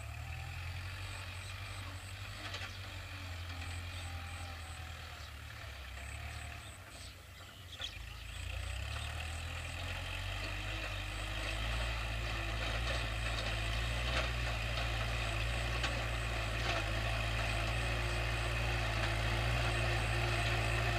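Kubota L5018 tractor's four-cylinder diesel engine running steadily under load while ploughing a dry paddy. It is a low drone that grows louder from about eight seconds in as the tractor comes closer.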